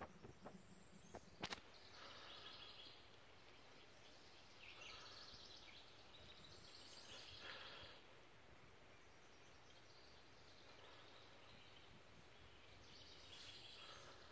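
Faint birdsong in woodland: a few short phrases a few seconds apart over a quiet outdoor background, with a single sharp click about a second and a half in.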